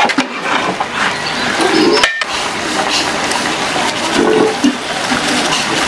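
Large pot of biryani rice boiling hard in water, a steady loud bubbling that cuts out for a moment about two seconds in.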